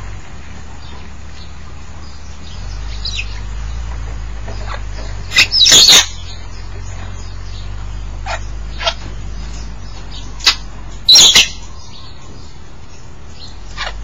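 African grey parrots calling: two loud short calls about five seconds apart, with a few shorter, fainter calls between and after them.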